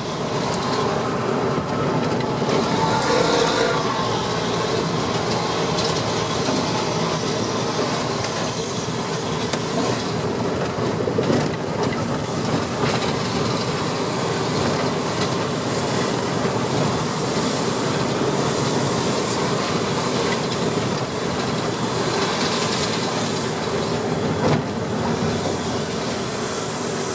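Diesel engine of a 9200 semi-truck running steadily at low city speed. The long tailpipe extension has been taken off, which leaves the exhaust louder.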